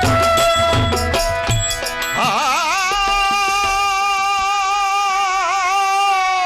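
Live Bengali Baul song with harmonium: drum strokes and harmonium for about two seconds, then a male singer holds one long note with vibrato over the harmonium.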